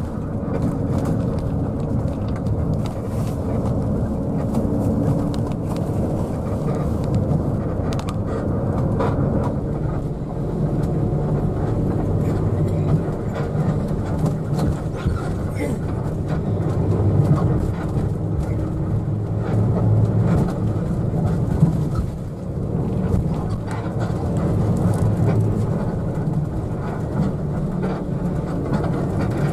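Cabin sound of a Mercedes-Benz OH1526 coach on the move: a steady low drone of the rear-mounted diesel engine mixed with road and tyre noise, with small knocks and rattles from the body.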